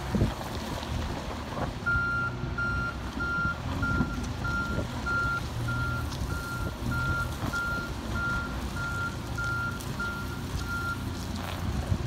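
Manitou MLT 840 telehandler's reverse alarm beeping at a steady pace, about three beeps every two seconds, as the machine backs up over its diesel engine running underneath. The beeping starts about two seconds in and stops about a second before the end.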